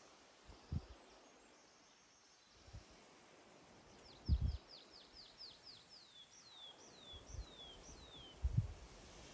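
A songbird singing one phrase of about a dozen high notes, each sliding downward, quick and short at first, then slower and longer toward the end. Dull low thumps also come through, the loudest about four seconds in and again near the end.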